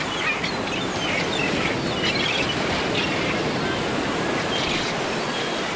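Sea waves washing steadily, with birds chirping now and then over the surf.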